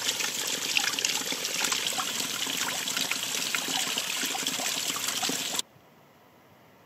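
A small trickle of water running and splashing down mossy rocks into a shallow pool, a steady splashing that cuts off suddenly near the end.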